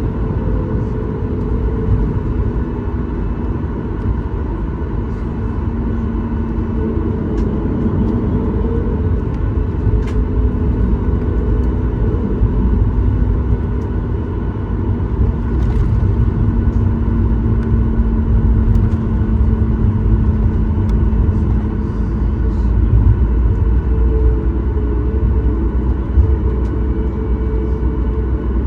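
Cabin noise of a Boeing 737 MAX 8 on the ground with its CFM LEAP-1B engines running: a steady low rumble with a constant engine hum and a few light knocks, getting a little louder about halfway through.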